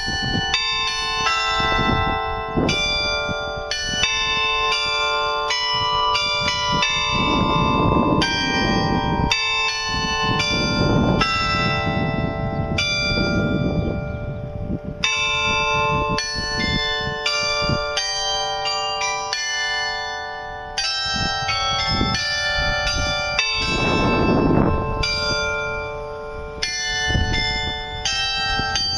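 Carillon bells of the New Ulm Glockenspiel clock tower playing a tune: one struck note after another, several a second, each ringing on under the next. A low rumbling noise swells up underneath the bells a few times.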